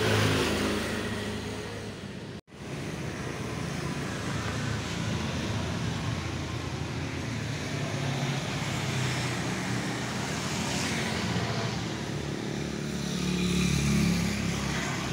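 Road traffic noise: a steady rush of passing vehicles, with a motor engine growing louder near the end. The sound cuts out for an instant about two and a half seconds in.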